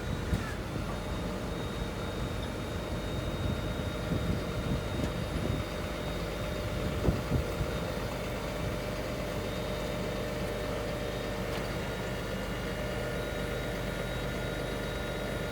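Cat C7.1 diesel engine of an asphalt paver running steadily at a constant pitch, with a few short clunks in the first half.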